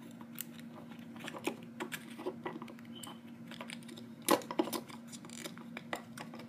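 Light clicks and taps of small earring studs and their packaging being handled and put back, with one sharper click a little over four seconds in. A faint steady hum sits underneath.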